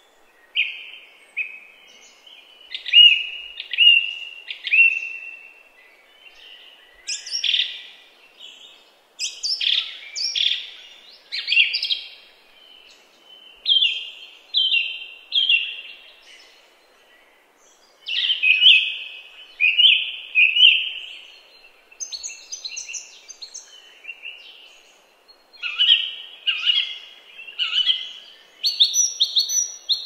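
Songbirds singing in a forest: runs of short, clear, downward-sliding notes, three to six in quick succession, repeated after short pauses, with higher, thinner notes joining in a couple of times.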